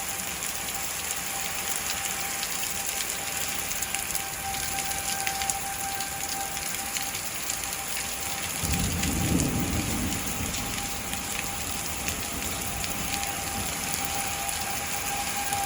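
Heavy rain hissing steadily, with a rumble of thunder about nine seconds in. Underneath, a distant outdoor tornado warning siren sounds a faint steady tone that swells and fades.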